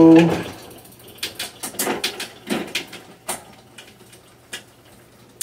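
Irregular clicks of an old Shimano rear trigger shifter being thumbed, with ticks from the chain and derailleur as the cranks are turned by hand. The shifter only gets through three or four clicks because dried-up grease has left its pawls and springs stuck.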